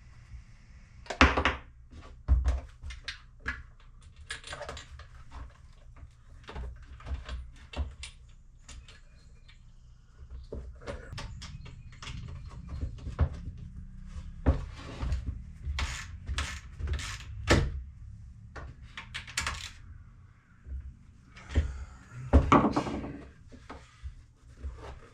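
Irregular clicks, knocks and rattles of parts and tools being handled while fitting a motor controller into a dirt bike's air box, with a louder knock about a second in and a longer clatter near the end.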